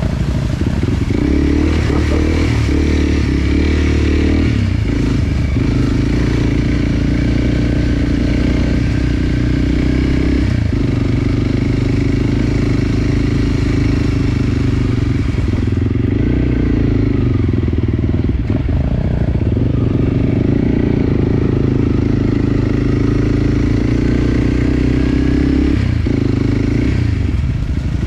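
Enduro dirt bike engine running as the bike is ridden along a trail. The engine note drops and picks up again several times as the throttle and gears change.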